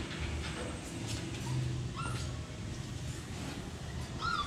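Phu Quoc Ridgeback dog whimpering: two short high yips, one about two seconds in and a louder one near the end.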